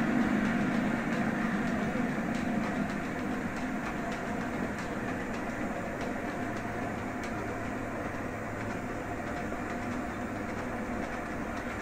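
HO-scale model freight train rolling over the track, its running hum and wheel noise fading as it moves away, with faint scattered clicks from the wheels over the rails.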